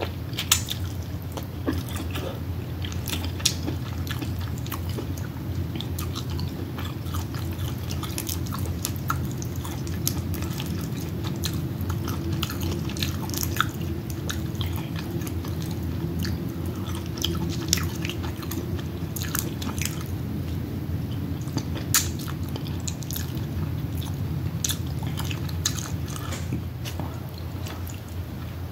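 Close-miked chewing, smacking and biting of a person eating seafood-boil crab, with scattered sharp clicks and crackles over a steady low hum.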